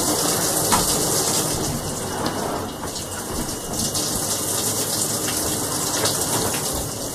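Shower running: a steady spray of water splashing down.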